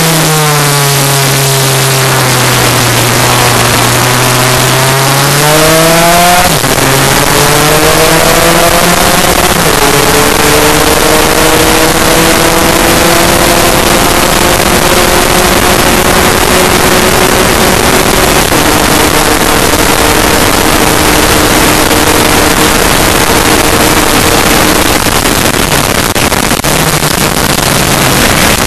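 Two-stroke Lambretta race scooter engine heard onboard at racing speed, revs climbing out of a corner with two quick upshifts about six and nine seconds in, then held high down the straight before easing near the end. Heavy wind rush over the microphone throughout.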